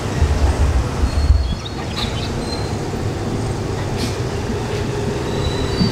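Street traffic noise: a motor vehicle running steadily, with a heavier low rumble for the first second and a half.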